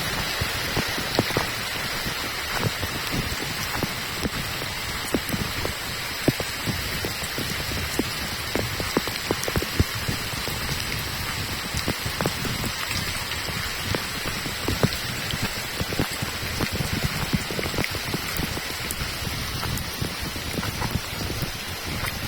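Steady rain falling: an even hiss with frequent sharp, close drop strikes.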